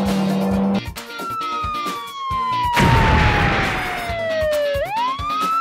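Background music with a beat, over a cartoon police-car siren tone that slides slowly down in pitch for several seconds, then swoops quickly back up near the end. A brief whoosh comes about halfway through.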